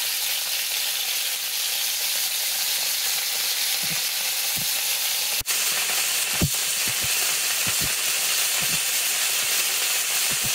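Cubes of beef leg searing in very hot oil in an iron pan: a steady sizzle with a few scattered spits and pops, the browning that builds roast flavour.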